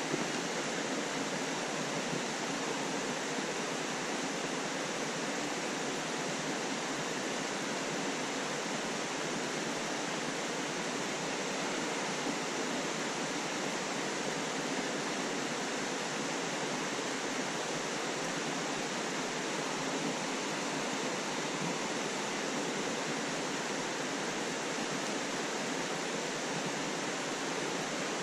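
Steady rush of flowing water from the gorge's stream or falls, an even hiss at a constant level with no breaks.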